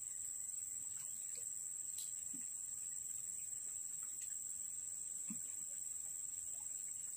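Steady high-pitched insect chorus droning without a break, with a few faint ticks here and there.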